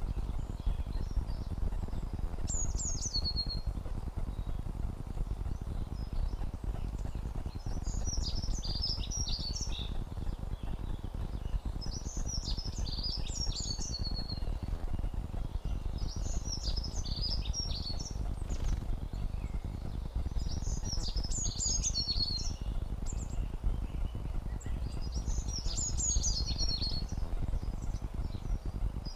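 Continuous low crackling and popping in the GoPro's audio, a recording fault, running throughout under a songbird that sings a short descending trilled phrase about every four seconds.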